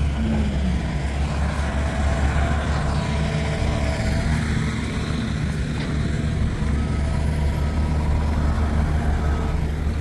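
Steady low rumble of heavy diesel construction machinery, an excavator and dump trucks, running.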